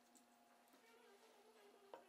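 Near silence: faint room hum, with a faint click near the end.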